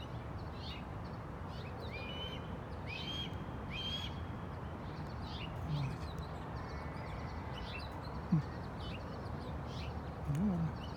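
Repeated short, high whistled bird calls, a few of them rising then holding, from a hidden bird that the uploader takes for a baby eagle (eaglet). A short low sound about eight seconds in stands out as the loudest moment.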